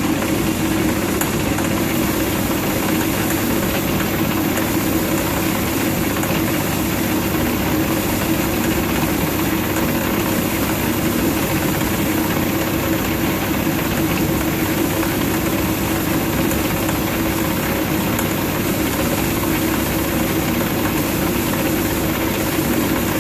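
Old metal lathe running under power at slow speed, a steady rumbling drone from its worn spindle bearings and gearbox, while a vertical shear tool takes a light finishing cut on hot-rolled steel.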